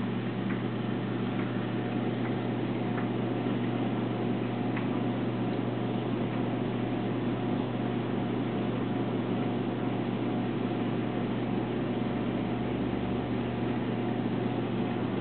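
Reef aquarium's circulation pumps running with a steady low hum over a wash of water noise, with a few faint clicks in the first five seconds.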